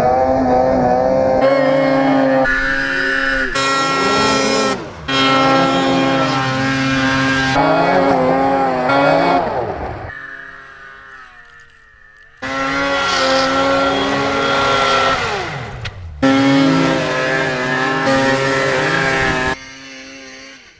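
Two-stroke snowmobile engines revving up and down in a string of short clips, with sudden cuts between them. The sound fades out near the middle, then comes back abruptly at full volume.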